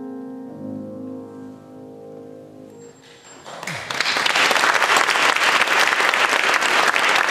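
Grand piano's closing chord ringing and fading away, then audience applause breaking out about three and a half seconds in and quickly swelling to full clapping.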